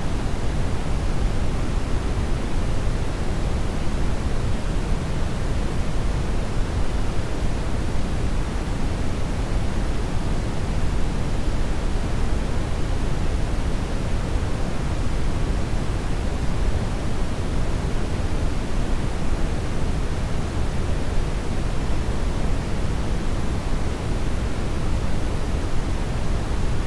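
Steady synthetic noise: an even, unbroken hiss, heavier in the low end than in the highs.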